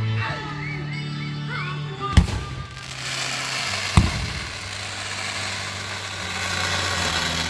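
Fireworks going off: two sharp bangs about two seconds apart, followed by a spreading crackle, over music played for the show.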